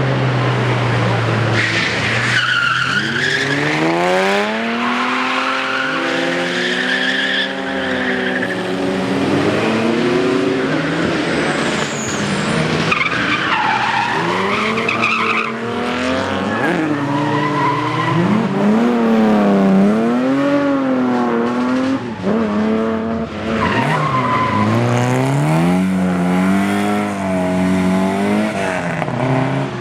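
Rally car engine being revved hard, its pitch climbing and dropping again and again through gear changes and lifts while drifting, with tyres squealing and skidding on the track.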